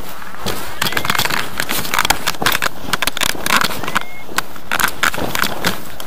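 Clothing rubbing and scraping right against the microphone of a body-worn action camera: a loud, dense crackling rustle of fleece and fabric handling noise.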